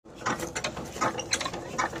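A power tiller's diesel engine being turned over with its hand crank: irregular mechanical clicking and clattering, several clicks a second, with no steady running note from the engine.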